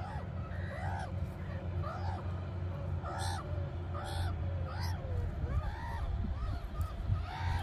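Repeated short animal calls, each rising and falling in pitch, about one to two a second, over a steady low hum.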